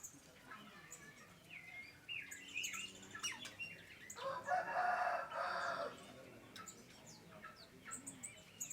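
Mixed aviary birds chirping and calling, many short high chirps, with one loud harsh call lasting about a second and a half, about four seconds in.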